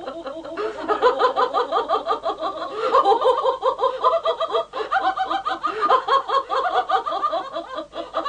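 A woman laughing hard and without pause: a fast, high-pitched run of short 'ha' pulses, about five or six a second, broken only by brief catches of breath.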